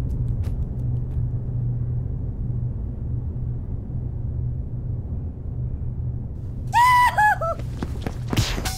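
Film soundtrack: a steady low rumbling drone, then about seven seconds in four short loud tones stepping down in pitch, followed by a burst of noise just before the end.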